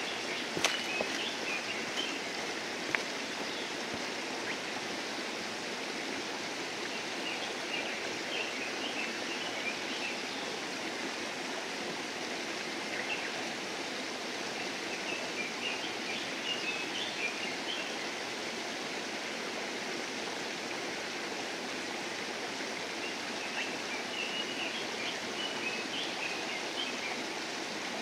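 Steady rushing, stream-like background noise, with short bursts of high twittering bird calls every several seconds and a couple of sharp clicks in the first few seconds.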